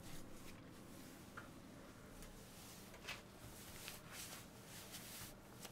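Near silence: room tone with a scattering of faint, irregular clicks and small handling noises.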